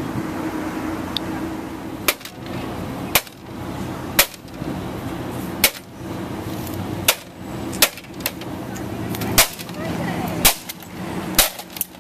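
Metal pipe striking a plastic desktop printer again and again: about nine sharp blows, roughly one a second, as its case is smashed apart. A steady low hum runs underneath.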